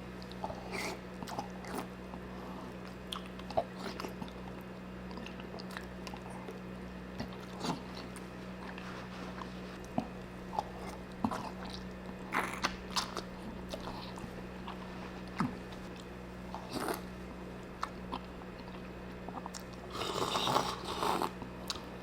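Close-miked eating of a seafood boil: chewing and biting with scattered sharp clicks and smacks, busier for about a second near the end, over a steady low hum.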